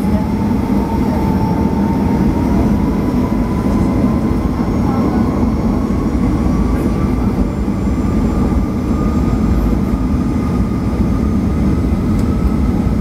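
Jet engines of a Boeing 737-900 (CFM56-7B turbofans), heard from inside the cabin: a steady heavy rumble with a whine that climbs slowly and evenly as the aircraft rolls along the runway on departure.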